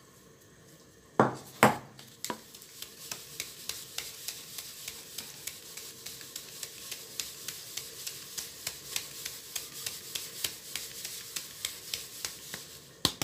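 A round flour sieve being shaken back and forth to sift flour. Its frame knocks lightly about three times a second over a soft hiss of falling flour, with a couple of louder knocks about a second in and again near the end.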